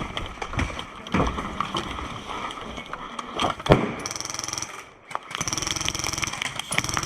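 Airsoft gun firing full-auto, two sustained bursts of rapid fire with a motor buzz, the second longer, after a few seconds of scattered knocks and scuffling.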